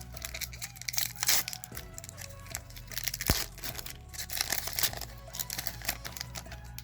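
A foil Pokémon booster pack crinkling and tearing as it is opened, with a sharp click about three seconds in. Background music plays underneath.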